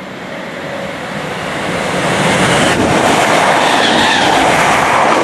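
Electric multiple unit passing along the platform at speed. The rush of wheels on rail builds over the first two seconds as it draws level, then holds as a steady loud roar with some rail clatter.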